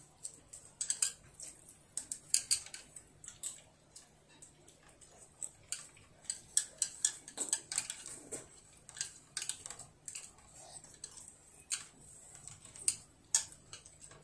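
Chopsticks clicking, tapping and scraping against a child's bowl while food is picked up, in irregular clusters of sharp clicks.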